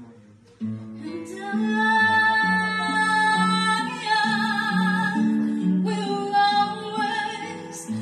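A woman singing into a microphone over recorded backing music; the music comes in about half a second in and the voice soon after, holding long notes with vibrato.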